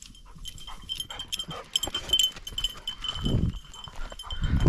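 Bell on a running Gordon setter's collar ringing over and over, a high ring with each stride, over light clicking. Two short low rumbles about three and four and a half seconds in.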